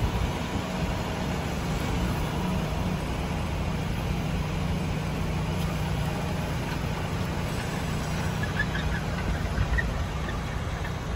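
John Deere tractor's diesel engine running at a steady hum under load as it pulls a strip-till cultivator through the soil.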